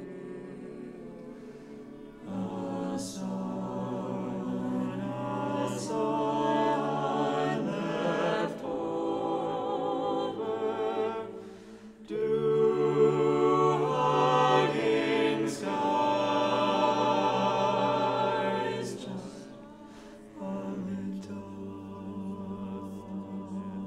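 Antiphonal double choir singing slow, sustained chords. The voices swell louder about two seconds in, dip briefly near the middle, swell again, and fall softer near the end.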